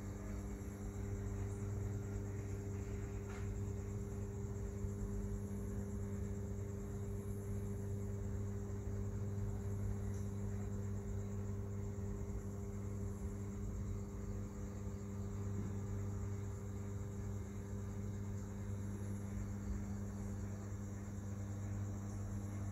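A steady low electrical hum over a faint hiss, unchanging throughout.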